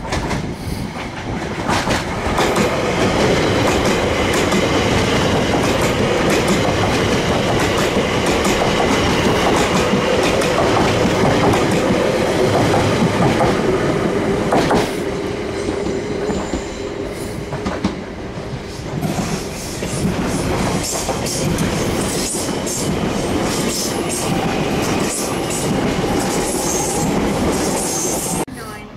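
A train running past on the tracks, loud and steady, its wheels clattering over the rail joints with some high squeal in the second half; the sound cuts off suddenly near the end.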